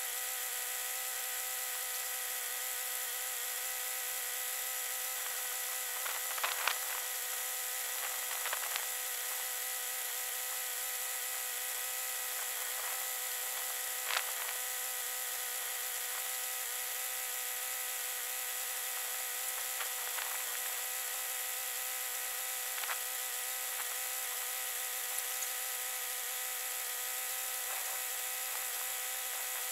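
A steady high whine with several pitches runs throughout, and a few short metallic knocks and clanks of hand tools sound over it, the clearest about 6, 8, 14 and 23 seconds in, as a tractor's wheel hub is taken apart and replaced.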